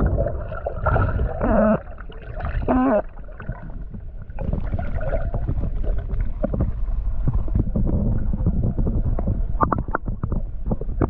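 Water gurgling and sloshing, heard muffled, with two short wavering tones in the first three seconds. From about four seconds in there is a dense low rumble with many scattered clicks and knocks.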